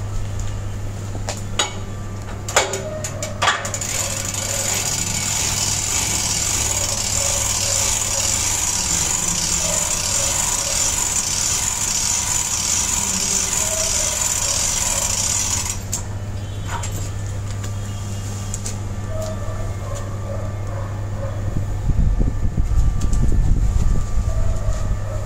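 Spring starter being wound with its hand crank: a few separate clicks, then a rhythmic ratcheting clatter for about twelve seconds that stops suddenly. Near the end a low rumble swells for a couple of seconds, over a steady low hum.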